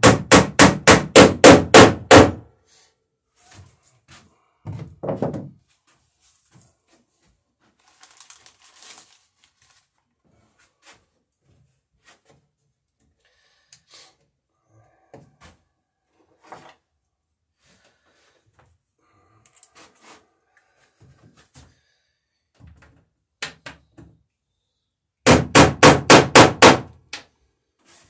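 Rivets being hammered in a wooden dory's planking: rapid hammer blows, about five a second, against a dumbbell held behind the plank as a dolly. A fast run of a dozen or so strikes opens, a few more knocks come around five seconds in, and another run of about eight strikes comes near the end. Faint taps and handling clicks fall between the runs.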